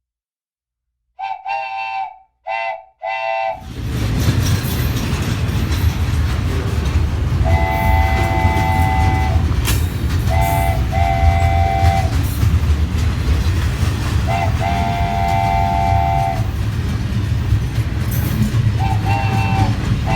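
Train horn giving three short blasts about a second in, then the loud rumble of a passing train. The horn keeps sounding over the rumble in long and short blasts, its notes forming a chord.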